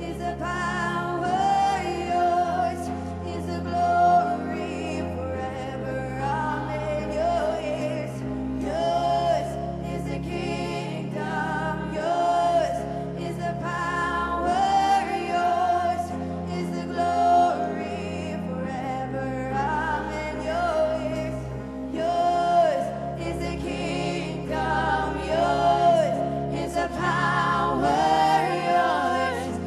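Live church worship music: women's voices singing a slow song, with wavering held notes, over keyboard and sustained low bass chords.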